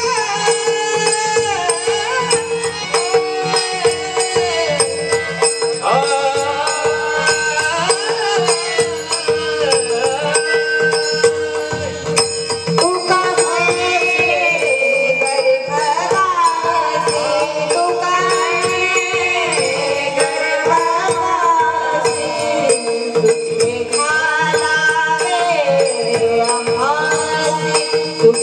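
Marathi devotional bhajan in raga Bhairavi: a gliding sung melody over a steady held drone, with jingling percussion keeping a regular beat.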